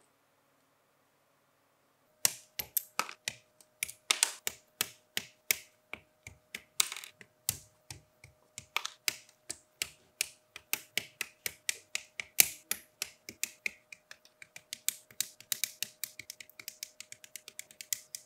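Side-cutter nippers snipping plastic model-kit parts off their sprues: sharp crisp clicks in quick, irregular succession, starting about two seconds in and coming faster toward the end.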